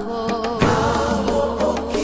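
Background music: a wavering melody line over a steady beat of percussion strikes.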